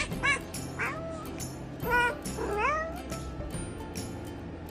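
Domestic cat making a series of short meows, several of them sliding up in pitch, with background music.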